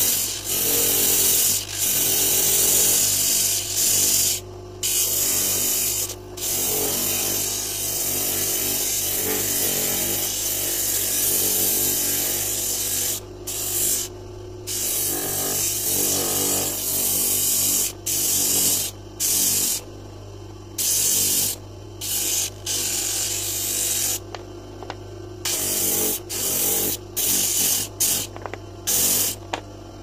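Wooden knob blank being sanded on a spinning disc sander. A harsh hiss comes each time the wood is pressed to the disc, in repeated passes lasting from a second to several seconds, over the steady hum of the sander's motor. Near the end the passes become short, quick touches.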